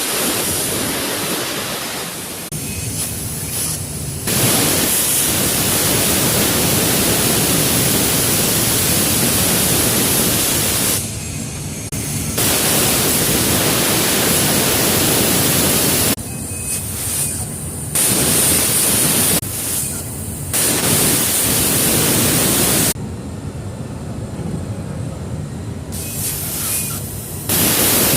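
CNC plasma torch cutting 8 mm stainless steel plate: a loud steady hiss of the arc, cutting out and starting again several times.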